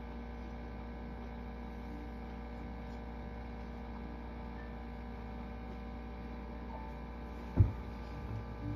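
Steady electrical hum made of several fixed tones over a low drone, with one sharp thump near the end.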